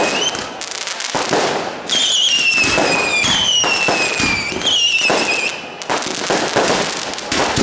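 Fireworks going off in quick succession, with dense crackling bangs. Three high whistling shells sound among them, each whistle falling in pitch over about a second.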